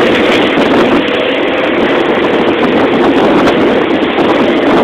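Motorboat under way: a loud, steady rush of engine noise mixed with wind and water.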